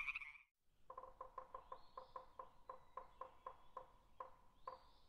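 Faint title-card music: a quick, even run of short notes on one pitch, about four to five a second, with two brief rising chirps.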